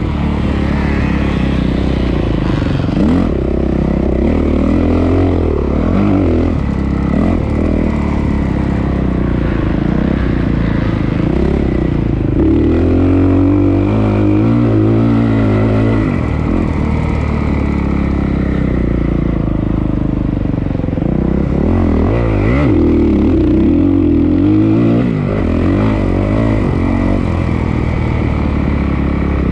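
Honda CRF450R motocross bike's single-cylinder four-stroke engine running hard on a lap. The revs climb and drop again and again as it accelerates and backs off.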